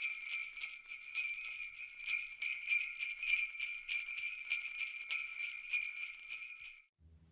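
Jingle bells shaken in a quick, steady rhythm that stops shortly before the end. Soft plucked-string music starts right after.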